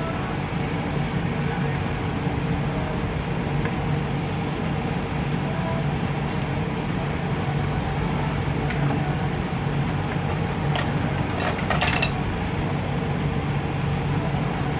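Steady low hum and rushing room noise, with a short cluster of light clicks and clatters about eleven seconds in as makeup containers and brushes are handled.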